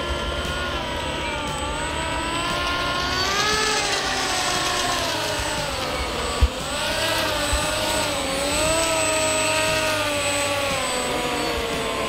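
Electric drive of a 1:6 scale wooden RC Riva Aquarama model speedboat running fast across the water: a motor whine whose pitch rises and falls with throttle as the boat turns and passes. There is a short sharp knock about halfway through.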